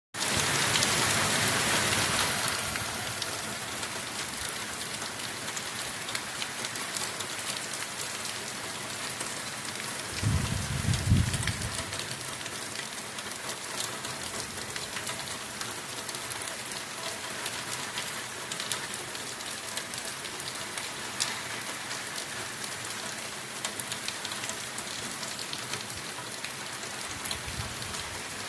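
Heavy rain falling in a steady hiss, loudest in the first couple of seconds. A low rumble rises under the rain about ten seconds in, with a weaker one near the end.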